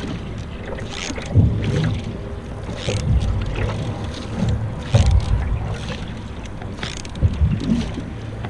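Canoe paddle strokes in the water, a splash and swish about every two seconds.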